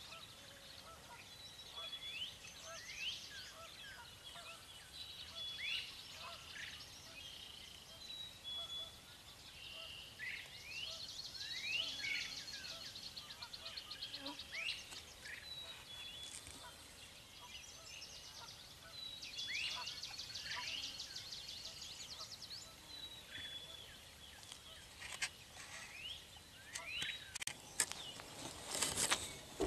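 Wild turkeys calling from the roost amid a chorus of songbirds: many short falling calls and two long rapid trills. Near the end there is a burst of close rustling and clicks.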